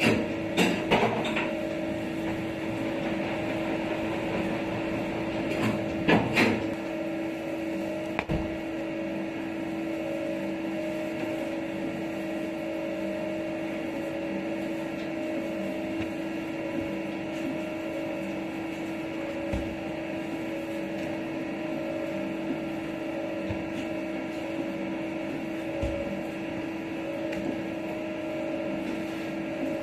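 Steady electric machine hum from bakery equipment. A few sharp knocks and clatters come in the first second and again around six seconds in, then a handful of soft thumps as rye roll dough pieces are set down on a floured wooden workbench.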